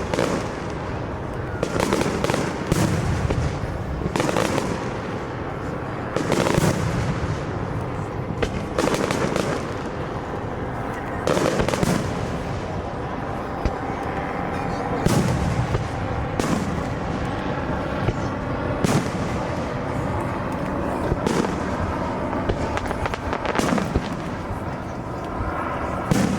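Aerial fireworks shells bursting one after another: more than a dozen loud bangs, a second to a few seconds apart, over a continuous background of noise.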